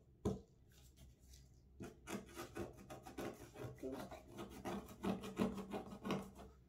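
Fingertip rubbing and scratching across a sheet of paper on a plastic-topped table: a single knock just after the start, then a quick run of short scratchy strokes from about two seconds in until near the end.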